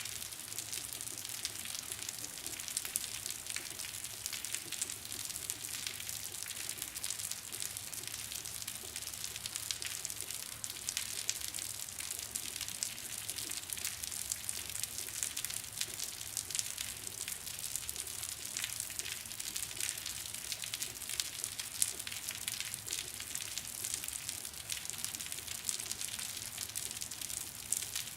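Rain falling on concrete with water dripping: a steady hiss made of many small, sharp drop impacts.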